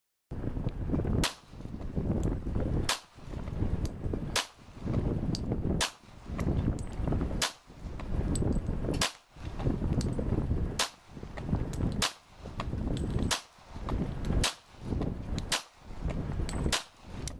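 Handgun fired shot after shot, about a dozen sharp cracks roughly every second and a half, at a firefighter's helmet. A steady rushing wind noise on the microphone fills the gaps and drops away briefly after each shot.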